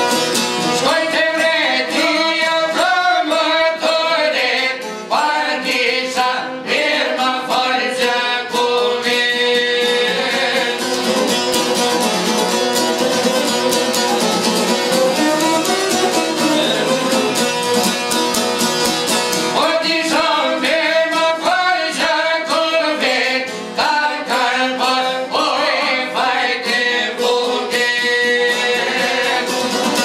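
Albanian folk ensemble playing: a violin with çifteli and other long-necked plucked lutes, picking out quick, busy melody lines.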